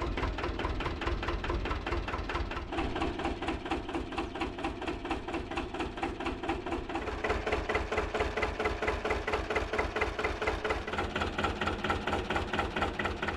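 Lanz Alldog A1806 tractor's diesel engine running, a steady, even knocking beat.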